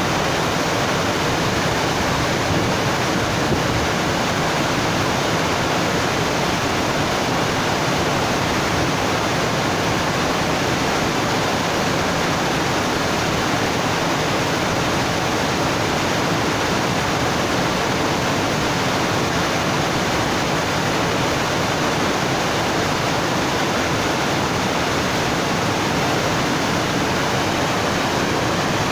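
Steady rushing of flowing water, like a waterfall or fast stream, an even unbroken noise with no changes.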